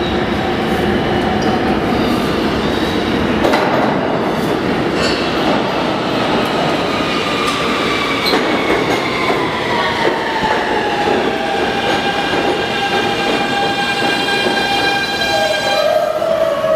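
New York City Subway R160 train pulling into the station and braking to a stop. Wheels rumble on the rails with a few clacks, and from about halfway through the traction motors give a whine that falls steadily in pitch as the train slows.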